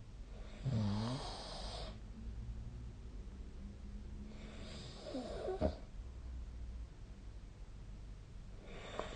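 A sleeping person snoring: three snores about four seconds apart, the first the loudest. The second ends in a sharp click.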